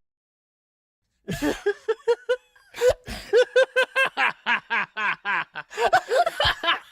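A person laughing: a quick string of short pitched "ha" bursts, several a second, starting about a second in after a brief silence.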